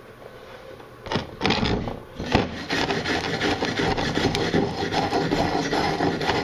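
Gasless flux-core MIG welder arc crackling as a bead is laid, starting about a second in, stopping briefly and restarting, then running on, with the welder at its highest wire speed on max power.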